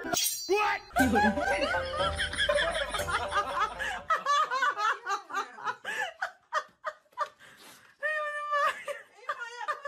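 People laughing in short repeated bursts, starting about a second in and going on to the end.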